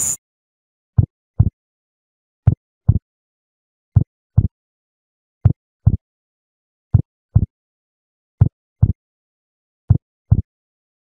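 Heartbeat sound effect: seven double thumps, lub-dub, one pair about every second and a half, with dead silence between. The night insect chirring cuts off sharply right at the start.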